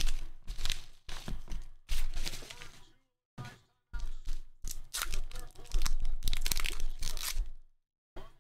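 Paper mailer envelope and clear plastic bag rustling and crinkling as cards in hard plastic holders are unpacked by hand, in irregular short bursts with brief gaps.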